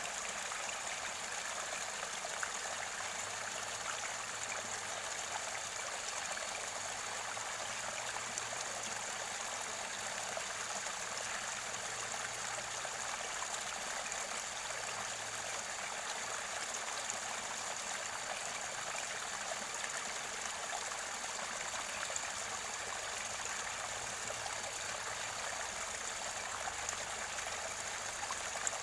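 Mountain stream water at its source, flowing and gurgling in a steady, unbroken rush.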